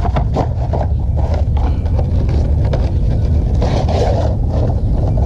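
Sandcloth rubbed back and forth on a copper pipe, cleaning it bright for soldering: a run of short, uneven scraping strokes over a steady low rumble.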